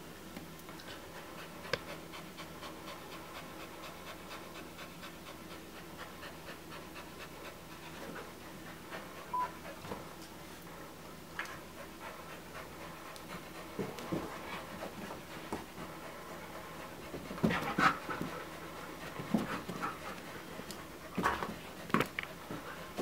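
Border collie panting steadily, mouth open. In the last few seconds come several louder, sudden sounds.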